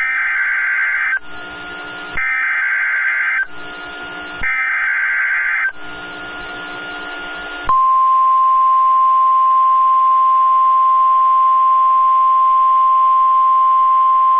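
Emergency Alert System weather radio alert: three bursts of SAME header data, a warbling digital screech each about a second long, with about a second of radio hiss between them. About eight seconds in, the steady single-pitch 1050 Hz weather radio warning alarm tone starts and holds.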